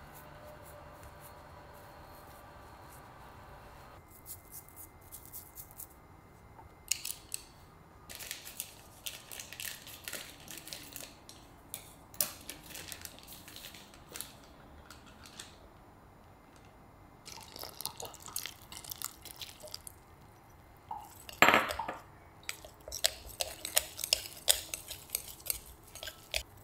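Glass mixing bowl being worked with a silicone spatula and bare hands: scattered light clicks and scrapes, then one short louder rush about three-quarters of the way through, followed by quick rustling scrapes of fingers working glutinous rice flour into dough.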